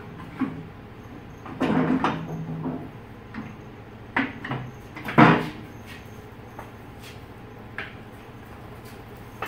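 Hand truck loaded with stacked metal test weights clanking and rattling as it is tipped back and rolled off a steel floor-scale platform. A handful of separate knocks, the loudest about five seconds in.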